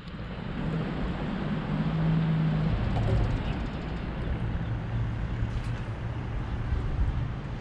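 Outdoor ambience of distant road traffic: a steady low rumble with an engine hum that swells twice as vehicles pass.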